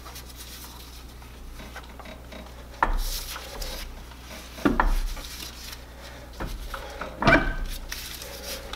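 Old torque converter being wiggled and worked off an automatic transmission's input shaft by hand: metal clunks and rubbing. The loudest knocks come about three, four and a half and seven seconds in.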